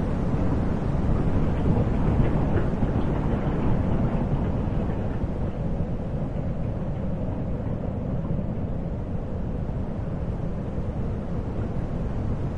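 Sound installation's soundtrack: a dense, steady low noise drone with no clear pitch, a little brighter and louder in the first few seconds, then settling slightly quieter.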